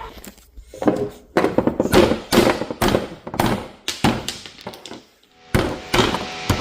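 A rock striking a plastic power outlet adapter over and over, a quick irregular series of hard knocks with a short pause about five seconds in.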